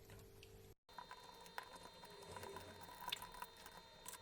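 Near silence: faint room tone with a few small clicks, and a brief complete dropout about a second in.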